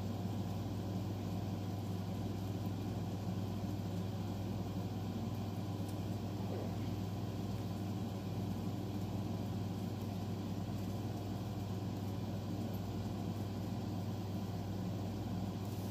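Steady low machine hum, even and unbroken, with no rise or fall.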